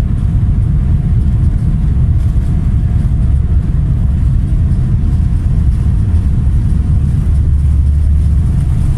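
Airliner cabin noise while the jet rolls on the runway: a loud, steady low rumble of engines and wheels, with a faint steady hum above it.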